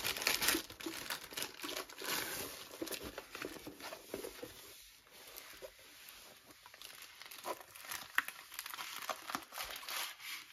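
Thin clear plastic sleeve crinkling as a rolled diamond painting canvas is pulled out of it, then the stiff canvas rustling as it is unrolled. The crinkling is thickest in the first few seconds, goes quieter around the middle, and returns as scattered crackles near the end.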